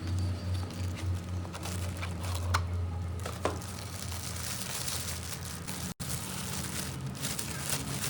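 Parcel packaging rustling and crinkling as it is handled and opened, with a few sharp clicks, over a steady low hum.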